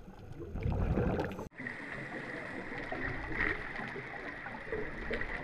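Underwater sound of divers at work: a low bubbling rumble, then after an abrupt cut a steady hiss with a thin, steady high whine from a diver's powered hull-cleaning tool.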